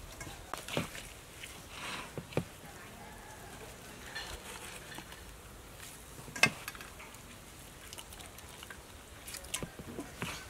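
Hands squeezing and kneading wet grated coconut in a stainless steel bowl to press out coconut cream: soft squelching and crackling with scattered small clicks, and one sharp click about six and a half seconds in.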